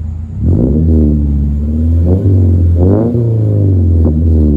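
2021 Subaru Crosstrek's flat-four engine blipped about four times from idle through a Crawford Performance axle-back muffler delete. The unmuffled exhaust rises and falls in pitch with each rev and drops back toward idle at the end.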